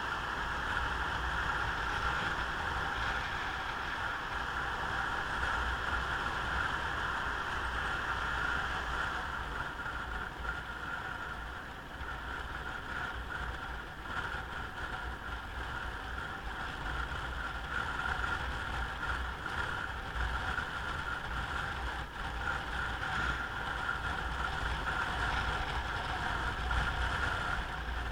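Steady ride noise from a moving motorcycle: wind rushing over the microphone with the engine and road rumble underneath, dipping briefly twice near the middle.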